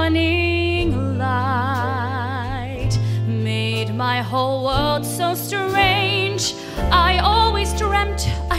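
Female vocalist singing an old-Hollywood-glamour style song with long held notes and wide vibrato, accompanied by a live band of keyboard, guitar, bass guitar and drums.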